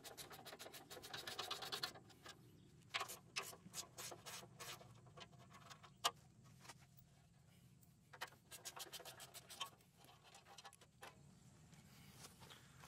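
Faint clicks, rattles and scraping from the rusty metal belt cover of a Mott flail mower as its fasteners are worked loose by hand and the cover is lifted off, with one sharper click about six seconds in.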